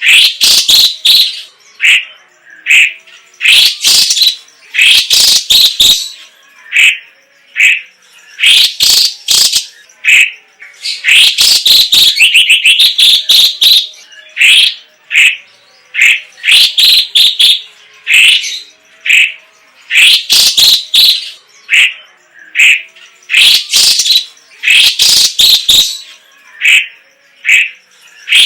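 A leafbird (cucak ijo cina, or cucak cungkok) singing a loud, varied song. Bursts of short, high chirping notes repeat every second or two, with a fast rattling trill near the middle.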